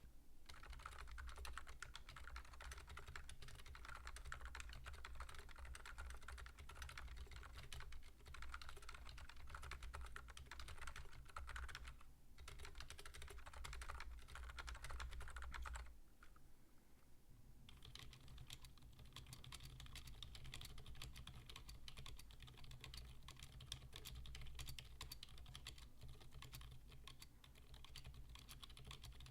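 Steady, quiet typing on TTC Silent Bluish White (V2) silent tactile switches, first in a Moonlander keyboard. After a pause of about a second and a half, roughly sixteen seconds in, the same switches are typed on in a Preonic keyboard.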